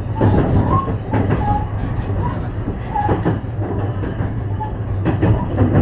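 JR West 223 series electric train running at speed, heard from the cab: a steady low hum with irregular clacks of the wheels over rail joints and points.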